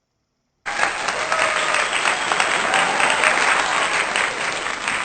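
Crowd applause, starting abruptly just under a second in.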